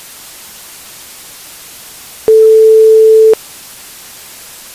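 A single steady electronic beep tone, one plain mid-low pitch held for about a second, over a steady background hiss.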